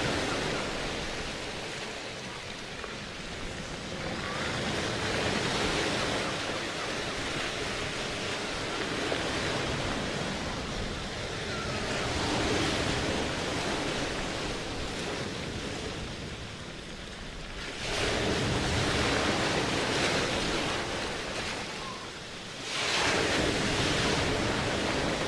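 Rushing, wave-like noise that swells and falls back every few seconds, with sharper surges about 18 and 23 seconds in.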